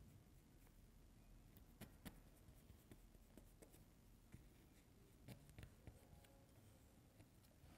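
Near silence, with faint scraping and a few light taps of a modelling tool smoothing the seams of air-dry clay.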